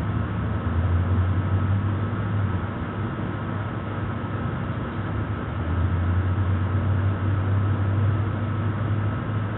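A steady low hum, easing a little partway through and then coming back up, with no clicks or pops.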